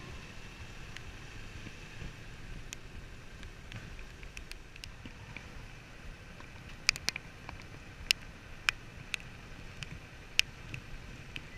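Suzuki V-Strom 650's V-twin engine running at low road speed, a low rumble under steady wind hiss on the microphone. From about seven seconds in come several sharp, irregular ticks.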